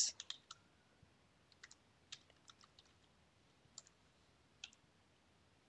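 Faint computer keyboard keystrokes: a quick run of key presses at the start, then single keys tapped every second or so while a formula is typed.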